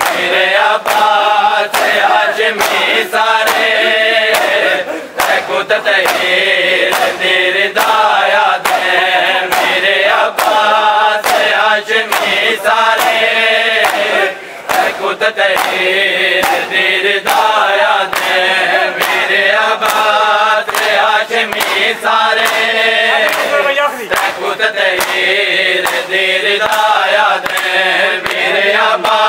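Men's voices chanting a mourning lament (noha) in unison, over a steady beat of sharp slaps from hands striking bare chests in matam.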